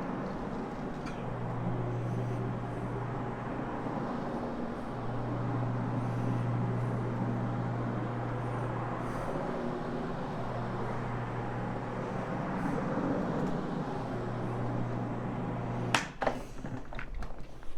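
Carpet-cleaning floor machine running with a hog's hair pad scrubbing the carpet: a steady low motor hum over a scrubbing hiss. It cuts off about sixteen seconds in, followed by a few sharp knocks.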